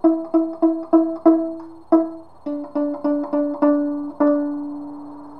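Violin played pizzicato, fingers plucking the strings: a run of short plucked notes on E, then on the open D string, descending to the tonic. The last open D is left ringing and slowly fades.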